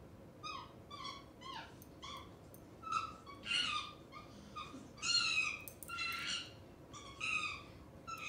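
Recorded chimpanzee calls played from an Alexa smart speaker. A run of about a dozen pitched hooting calls comes roughly two a second, the first ones short and falling in pitch, then growing longer and louder toward the middle.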